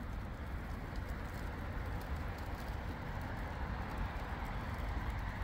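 Open fire of cardboard and scrap wood burning steadily: a low rush of flame with scattered faint crackles and pops.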